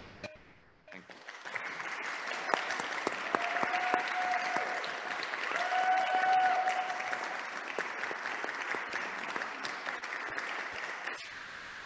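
Audience applauding, starting about a second in, with two long held calls from the crowd partway through. Near the end the clapping gives way to a steady faint hiss.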